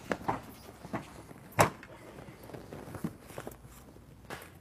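Plastic front bumper cover of a Porsche Panamera being pulled loose from its clips and handled: a series of clicks and knocks, the loudest a sharp knock about a second and a half in.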